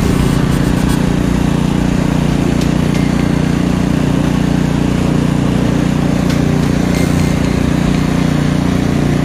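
Troy-Bilt Vortex 2890 three-stage snowblower engine running steadily while the machine clears snow and throws it out the chute.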